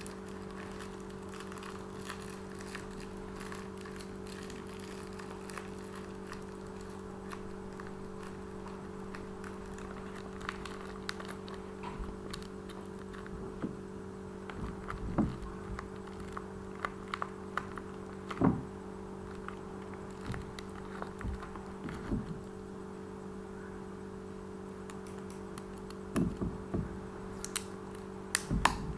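Scattered small clicks and taps from hands handling craft materials for a squishy, over a steady low hum; the taps come more often in the second half and near the end.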